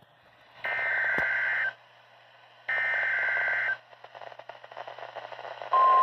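Midland NOAA weather radio sounding a tornado warning alert: two buzzy one-second bursts of digital SAME header data about a second apart, then the steady warning alarm tone begins near the end.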